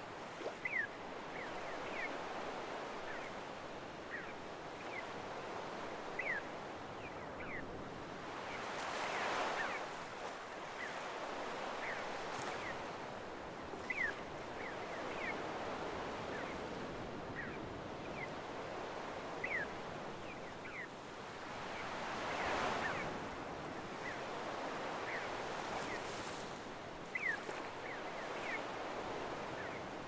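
Small waves washing and hissing up a sandy beach, with two larger surges about 9 and 22 seconds in. Throughout, gulls give short, high, falling calls every second or two.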